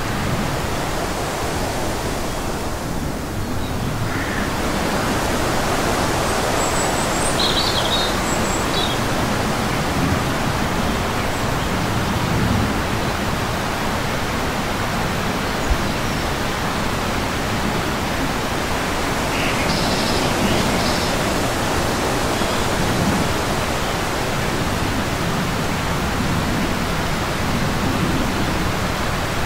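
A steady, even rushing noise with no speech or music, broken by a few faint, short, high chirps about a quarter of the way in and again about two-thirds of the way in.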